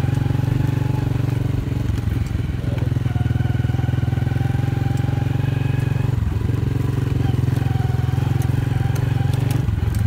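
Motorcycle engine running steadily at riding pace, heard from the rider's seat, with its note easing briefly about six seconds in and again near the end.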